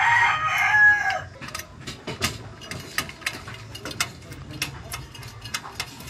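A rooster crows, its call falling away and ending about a second in. After that come scattered light metallic clicks and ticks: a steel mounting bracket and its screws being fitted by hand to a Deepcool Gammaxx GTE V2 tower heatsink.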